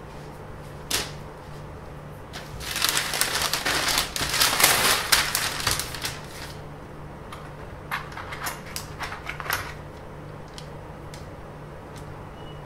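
A large sheet of paper rustling and sliding on a workbench as a flexible ruler is laid down and bent over it, loudest for a few seconds in the first half. A sharp click comes about a second in, and a cluster of light clicks and scrapes from small tools follows later, over a steady low hum.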